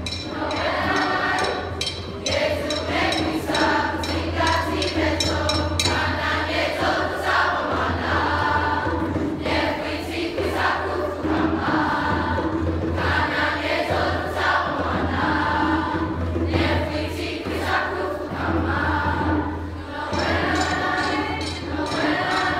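A middle school choir singing, many young voices together, heard from the audience seats of an auditorium.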